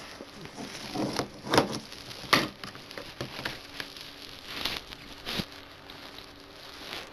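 Handling noise from a plastic Blu-ray case: irregular clicks and taps with rustling, the sharpest clicks about one and a half and two and a half seconds in.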